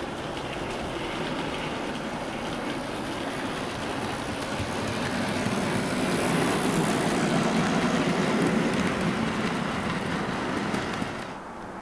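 Model Class 22 diesel locomotive with a short rake of milk tank wagons running along the track: motor hum and wheel-on-rail rumble. It grows louder as the train passes close, is loudest from about halfway through, and drops away suddenly near the end.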